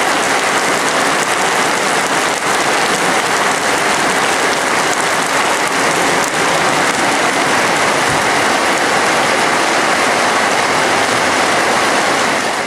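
Steady rain falling on surfaces, an even hiss that holds without letup.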